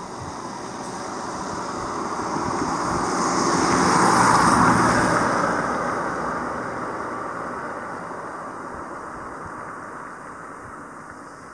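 A vehicle passing by, its noise swelling to a peak about four seconds in and then slowly fading.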